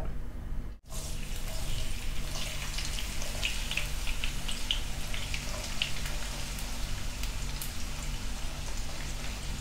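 Salted bitter gourd slices deep-frying in hot oil in a pan: a steady sizzle with scattered crackles and pops, starting just after a brief gap about a second in.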